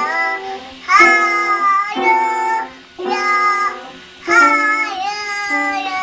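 A toddler striking clusters of keys on an upright piano, a new jumble of notes about once a second, each fading, with a small child's voice singing along.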